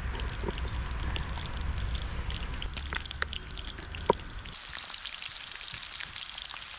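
Scattered sharp crackles over a low rumble, then about four and a half seconds in the low rumble drops away and a steady bright frying sizzle takes over: steaks searing in hot clarified butter in a forged iron pan.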